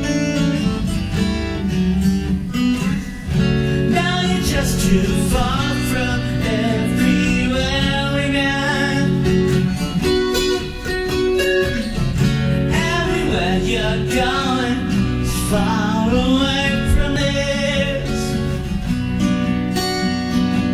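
Acoustic guitar played steadily, with a gliding, bending melody line over it in two long phrases, starting about four and about thirteen seconds in.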